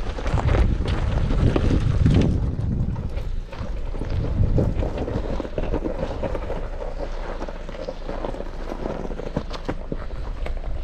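Wind buffeting the microphone, heaviest in the first two or three seconds, over a Jeep Wrangler Rubicon crawling slowly down a rocky slope: a low, steady engine note with stones and gravel crunching and clicking under the tyres.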